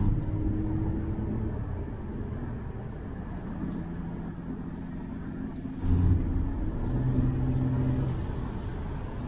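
2020 Jeep Cherokee's 3.2-litre V6 driving along, a steady low engine and road rumble whose engine tone steps lower a couple of times. A brief thump comes about six seconds in.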